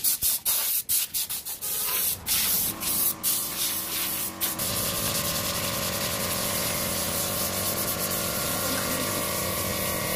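Sandpaper rubbed by hand over a solid wooden stool: quick, separate scratchy strokes over the first two seconds or so, then a steady, continuous sanding noise.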